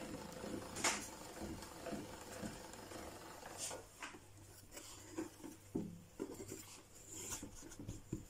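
Soft rubbing and scattered light knocks as a thin sheet of cannoli dough is handled at a hand-cranked pasta machine and laid out on a floured wooden board, with one sharper click about a second in.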